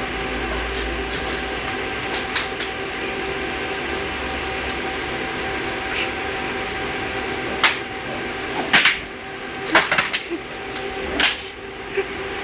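A steady mechanical hum with a few held tones in it, with several short, sharp noises breaking in over it in the second half.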